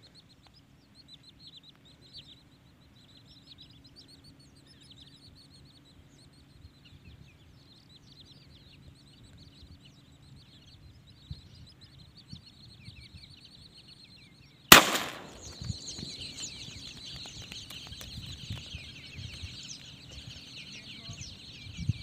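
A single 12-bore shotgun shot, a sharp crack about two-thirds of the way through. Around it a flock of birds keeps calling, faintly at first and then much louder and denser after the shot.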